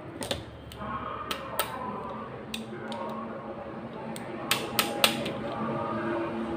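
Irregular sharp metallic clicks and taps, about a dozen, from stove parts and tools being handled during gas stove repair work; the loudest cluster comes near the end.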